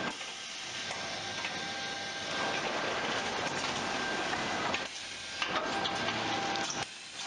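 Bag palletizer conveyor line running, a steady mechanical noise with a faint whine from its drives as it carries filled sacks. The noise dips briefly about five seconds in and again near the end.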